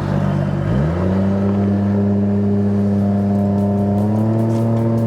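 Outboard engine of a Solar 470 Super Jet jet boat revving up sharply about a second in, then running steadily at speed, with a small further rise in pitch near the end.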